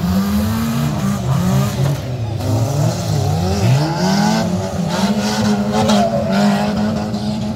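Several stock car engines racing through a dirt-track bend, revving up and easing off with their notes rising and falling and crossing one another.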